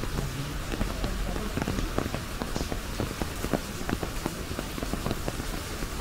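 Rain falling on an umbrella overhead: a dense, irregular patter of drops tapping on the fabric over a steady hiss of rain.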